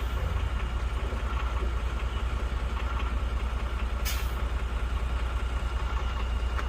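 Heavy truck's diesel engine running steadily with a deep, fast-pulsing rumble, and a short hiss of air from the air brakes about four seconds in.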